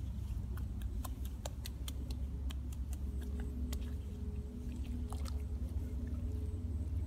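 Hands working in wet mud and shallow muddy water, giving a run of small, irregular wet clicks and splashes over a steady low rumble.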